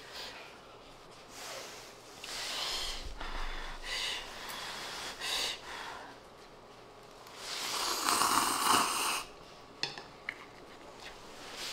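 A person slurping instant cup-ramen noodles in a few short noisy sucks, then one longer, louder slurp about eight seconds in.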